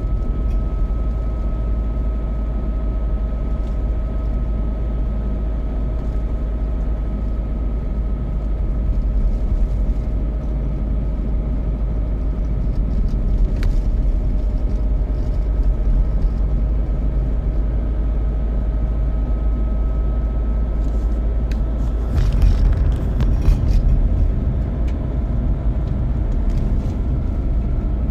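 Old car running steadily, with a heavy low rumble of engine and road noise and a steady whine held throughout. About 22 seconds in, a louder rush of noise swells for a couple of seconds, then the steady running carries on.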